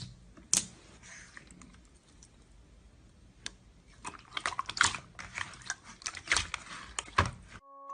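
Slime being pressed and poked, giving sharp clicks and crackling pops, sparse at first and coming in quick clusters from about four seconds in.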